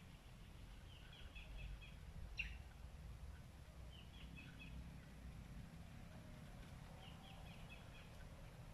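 A bird calls faintly three times, each call a quick run of short high notes, about three seconds apart, over a low rumble. There is a single sharp click about two and a half seconds in.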